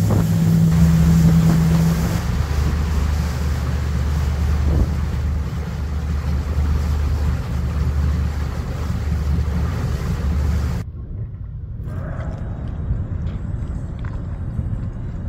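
Twin MerCruiser 6.2 V8 inboard engines of a Cruisers 340 Express running under way at speed: a steady low drone mixed with wind and water rush on the microphone. About eleven seconds in, the sound cuts off abruptly to a quieter low rumble.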